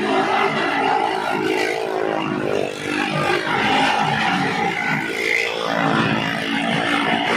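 Engines of stunt vehicles running and revving as they ride the wall of a well-of-death drum.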